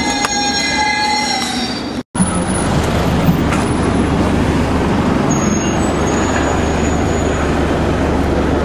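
London Underground train running with high-pitched wheel squeal for about two seconds. The sound then drops out briefly and is followed by a steady rumbling noise.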